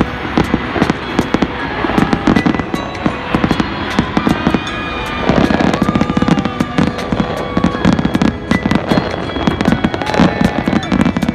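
New Year's fireworks going off all around: a dense, continuous run of bangs and crackles, with whistling rockets heard over them in the middle.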